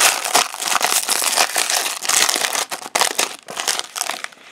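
Foil trading-card pack crinkling loudly as it is torn open by hand, a dense run of sharp crackles that eases off near the end as the cards come out.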